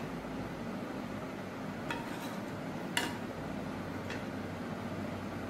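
Metal spoon clinking against a pan while scooping syrup, about four light clinks with the loudest around three seconds in, over a steady low hum.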